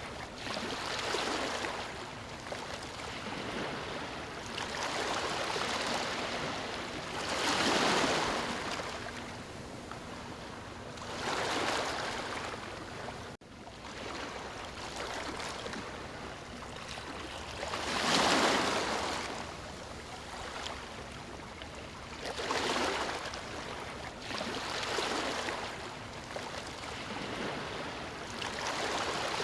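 Ocean waves breaking and washing up on a beach: a steady surf hiss that swells and falls back every few seconds, with two larger waves, the second about two-thirds of the way in. A brief sudden dip in the sound comes a little before halfway.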